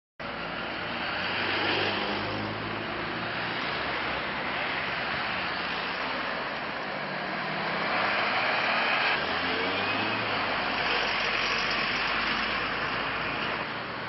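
Motor vehicle running on a road: steady engine and tyre noise that starts abruptly just after the beginning and swells slightly a couple of times.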